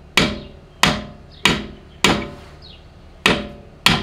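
Hammer blows on a chisel driving out a seized lower suspension bolt: six sharp metallic strikes that each ring briefly, roughly two a second, with a longer pause after the fourth. The bolt is held tight by pressure from the weight of the suspension.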